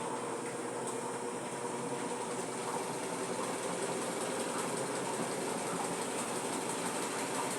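Brastemp Clean washing machine running: a steady motor hum with an even whirring noise, growing slightly louder a few seconds in.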